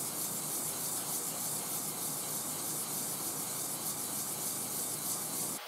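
Hydro-Gear wheel motor cylinder block being wet-sanded in small circles on oiled 400-grit sandpaper over a flat cast iron table, lapping wear off its face: a steady gritty rubbing that cuts off suddenly near the end.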